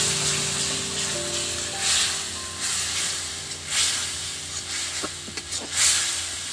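Spice paste (masala) sizzling in hot oil in a karai, with a little water just added, frying down until the oil separates. A few short scrapes of the spatula come near the end. Soft background music plays underneath.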